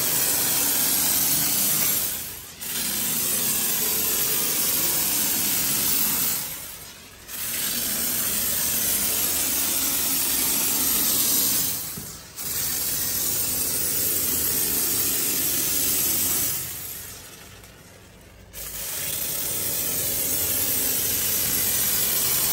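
Spray foam insulation hissing out of its pressurised kit through a small nozzle instead of a gun. It comes in five long bursts of a few seconds each, with short pauses between.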